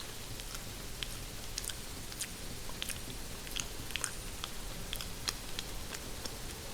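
Close-miked ASMR chewing and biting on hair, heard as irregular small clicks and crackles, over a steady hiss of rain.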